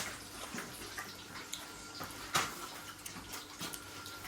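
Faint, scattered light clicks and taps of cutlery against dishes, with one louder tap about two and a half seconds in.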